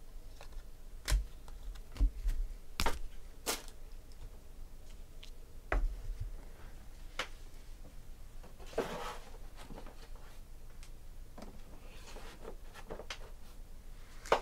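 Trading cards being handled on a table: a series of sharp taps and clicks as cards and stacks are set down and squared, spaced irregularly over the first several seconds. A brief rustle about nine seconds in, then a few lighter ticks.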